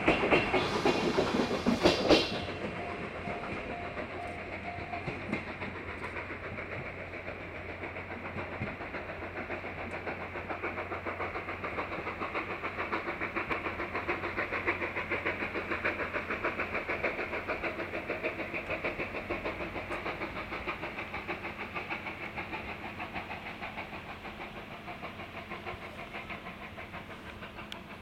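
A vintage passenger coach clattering past close by over the rail joints. Then the train moves away up a gradient, with the regular chuffing of the C56 steam locomotive working hard, at about four beats a second, slowly fading.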